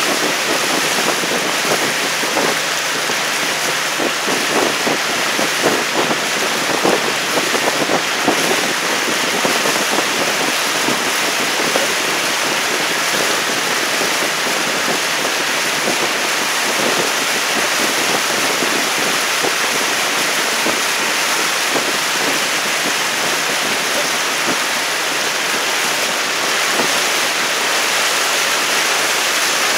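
Loud, steady rush of wind and moving water, with the irregular splashes of OC6 outrigger canoe paddles dipping into the water, most noticeable in the first third.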